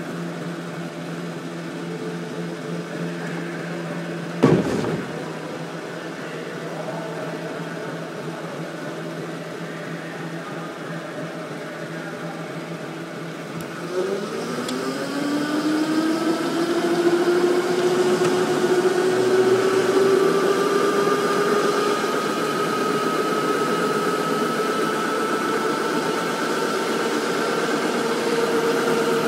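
Electric go-kart motor whining, its pitch climbing steadily from about halfway through as the kart gathers speed, over a steady hum. A sharp knock sounds about four seconds in.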